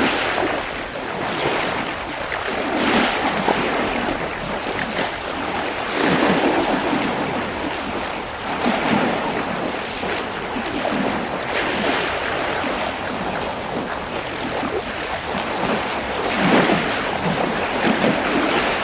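Sea waves washing in, surging and falling back about every three seconds.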